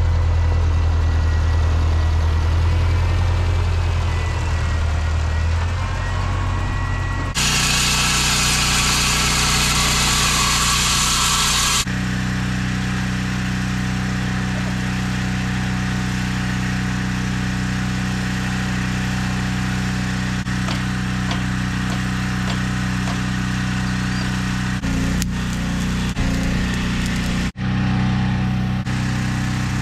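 An old farm tractor engine running steadily, then after a cut a loud hiss for about four seconds. Then a different engine runs steadily with an even low hum for the rest.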